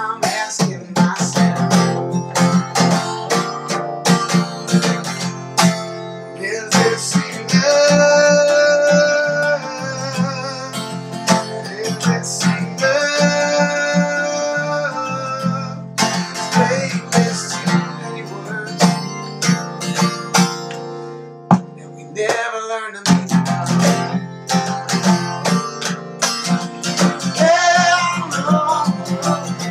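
Acoustic guitar strummed in a steady rhythm. A voice holds long sung notes over it about 7 seconds in and again about 13 seconds in, and briefly near the end.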